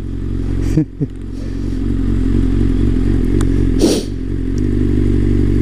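Honda CBR600F's inline-four engine, fitted with an aftermarket Scorpion exhaust, running at low revs in slow traffic. Two brief clicks come about a second in and a short rush of noise near four seconds in, and the engine note shifts slightly just after.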